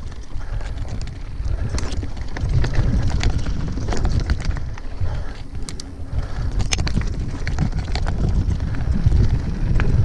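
Yeti SB6 mountain bike riding fast down a dirt trail: wind buffets the camera microphone in a heavy, swelling rumble, and tyres on dirt and leaves go by with frequent sharp clicks and rattles from the bike over bumps.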